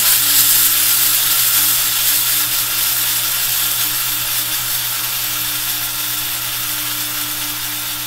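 Small electric blade coffee grinder switched on and running, its blade whirling a half load of uncooked white rice to scour coffee oil and grounds from the bowl: a loud, steady motor whir with a gritty hiss, starting abruptly.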